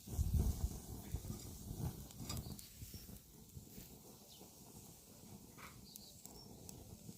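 Campfire crackling, with scattered sharp pops and a low rumble in the first second.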